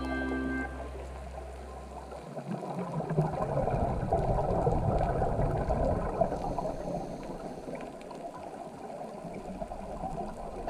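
Underwater water noise with bubbling and gurgling, as picked up by a camera on a scuba dive, swelling louder through the middle few seconds.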